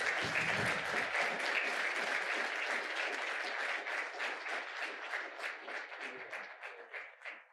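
Audience applauding, thinning to scattered separate claps and fading out near the end.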